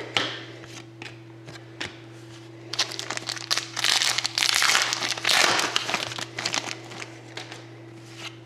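Wrapping crinkling as trading cards are handled: a dense rustle from about three to six and a half seconds in, with scattered light clicks of cards before and after. A steady low hum runs underneath.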